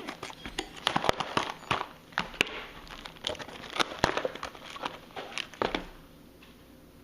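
Packaging of a vinyl repair kit crinkling and crackling as it is handled and opened, in irregular bursts that stop about six seconds in.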